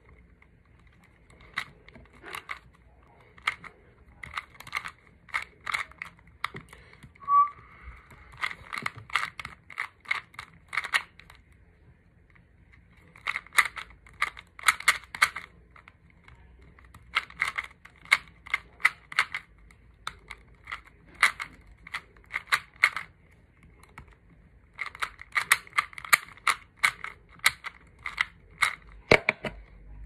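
A 2x2 Rubik's cube being turned fast by hand: rapid plastic clicks as the layers snap round, in bursts of one to three seconds with short pauses between. A single brief high beep sounds about seven seconds in.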